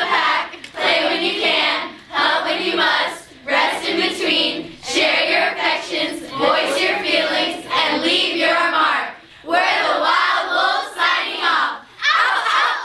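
A class of students reciting a credo together in unison, in short chanted phrases with brief pauses between them. Near the end they break into a loud group shout.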